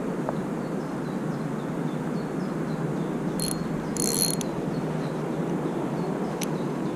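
Spinning reel (Stinger Innova 1003) giving two brief ratcheting whirrs about three and a half and four seconds in, with a single click later, over steady outdoor background noise.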